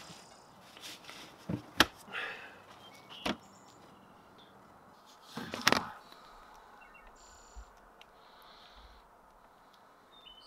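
Handling noise at the back of a vehicle: a few sharp clicks and knocks, the sharpest about two seconds in, then a short, louder noisy burst just past halfway.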